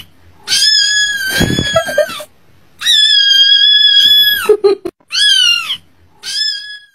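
A kitten meowing loudly in high-pitched, drawn-out cries. There are two long cries, then two shorter ones near the end.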